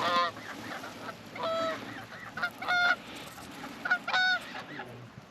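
Goose honks: four loud, clear honks roughly every second and a half, with softer short clucks between them.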